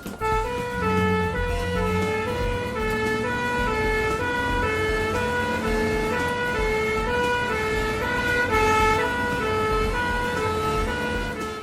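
Ambulance two-tone siren alternating evenly between a high and a low note, each held about half a second.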